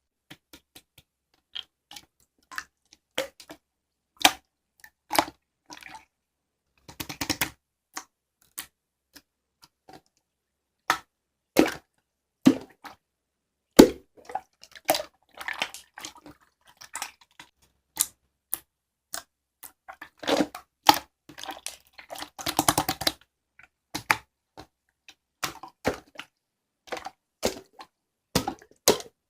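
Irregular sharp clicks and light taps, one every second or so, with silence between and a denser run of tapping about two-thirds of the way through.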